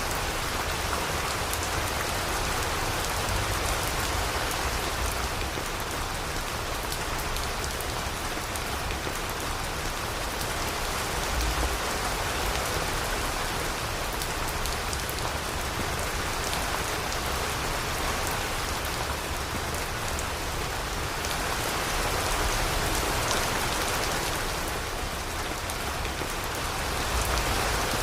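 Steady rain falling, an even hiss full of small drop ticks, with a low rumble underneath.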